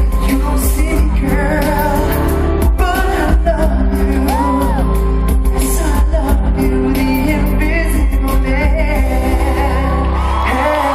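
Male pop singer performing a ballad live with a backing band, heard from the audience in a large arena hall. Near the end the song winds down and the crowd starts cheering and whooping.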